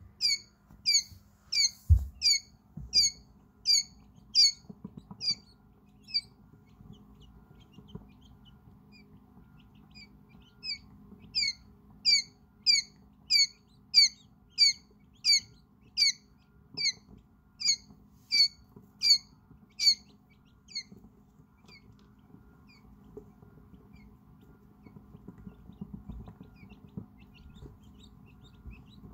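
A quail chick about five hours old peeping loudly and over and over, short high calls that slur downward, about one and a half a second. It calls in two long runs separated by a pause of several seconds, and fainter scattered peeps from the other chicks are heard in between and near the end.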